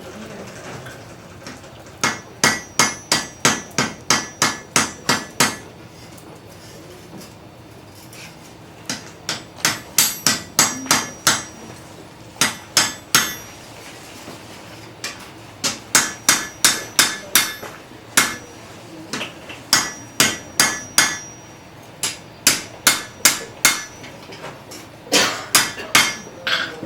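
Blacksmith's hammer striking metal on an anvil, about three blows a second, in runs of roughly a dozen strikes with short pauses between them. Each blow carries a bright ring.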